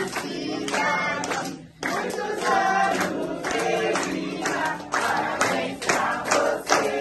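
A group of people singing a birthday song together around the cake, clapping along.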